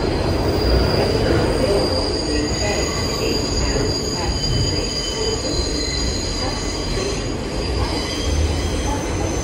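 New York City subway train running, a low rumble under a high-pitched squeal of the steel wheels on the rails made of several steady whining tones.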